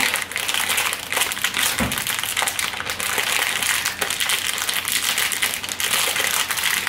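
Frozen fried rice pouring out of a plastic bag into a ceramic bowl: loose frozen grains rattle and patter into the bowl while the plastic bag crinkles as it is shaken, a dense crackle of small clicks.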